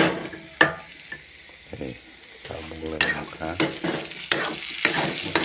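Sliced potatoes sizzling as they fry in oil in a metal pan while a metal spoon stirs them, scraping and knocking against the pan in several sharp strokes.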